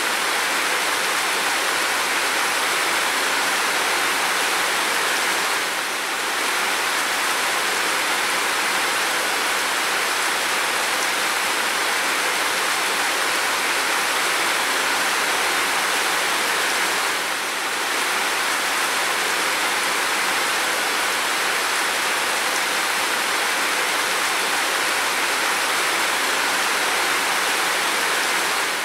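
Steady rain falling on a window and roof, a loud, even hiss that dips briefly about every eleven seconds.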